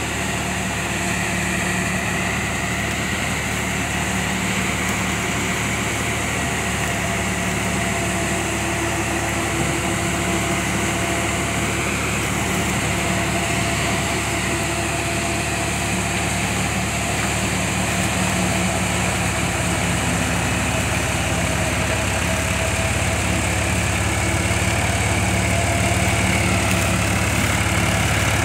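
New Holland 3630 tractor's three-cylinder diesel running steadily under load while driving a KS straw reaper through the PTO, its engine drone mixed with the whir and hiss of the reaper's cutting drum and blower throwing chopped straw. It gets a little louder near the end.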